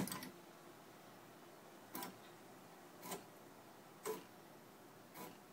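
Mendel90 RepRap 3D printer's stepper motors making short jog moves, four brief whirrs about a second apart, with a sharp click at the start.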